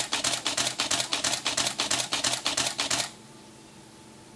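Canon 5D Mark III's mirror and shutter firing in silent continuous shooting mode: a fast, even run of clicks for about three seconds that then stops.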